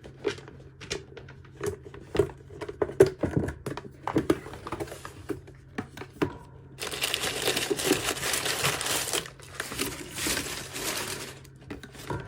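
A box of nail products being opened by hand: scattered taps and clicks of the cardboard and items being handled, then about seven seconds in a long stretch of packaging crinkling and tearing for four or five seconds.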